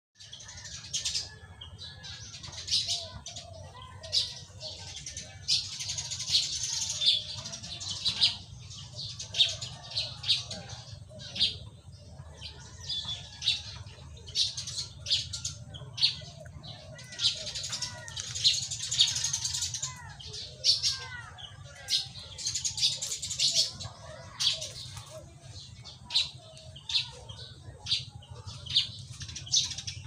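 A small songbird, the kind called pipit in the Philippines, singing in the treetops: a long string of sharp, high-pitched chirps with denser twittering runs every few seconds, over a low steady hum.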